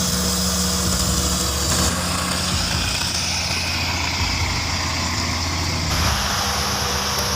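A heavy engine running steadily, its sound changing abruptly about two and six seconds in.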